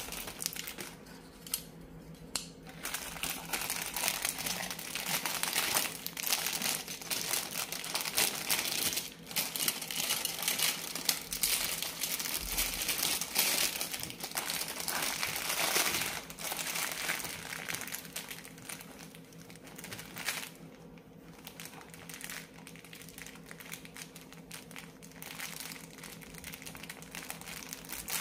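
Clear plastic packaging crinkling and rustling as it is handled, dense from a couple of seconds in until about sixteen seconds, then fainter, sparser handling noise.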